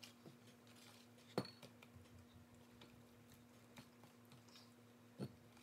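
Faint clicking and scraping of a whisk stirring brownie batter in a plastic mixing bowl, with a louder knock about a second and a half in and another near the end. A steady low hum runs underneath.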